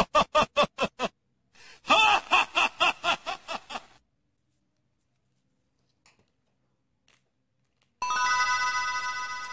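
Quick, evenly spaced voice-like syllables, a cartoonish laughing sound effect, in two runs ending about four seconds in. After a few seconds of silence, a bell-like chime of several tones rings out and slowly fades.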